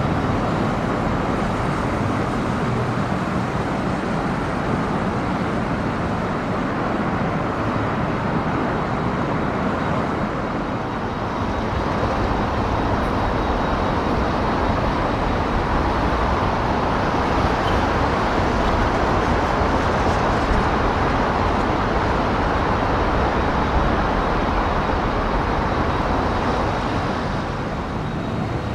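Steady road traffic noise from cars passing on a narrow road, growing louder from about a third of the way in until near the end.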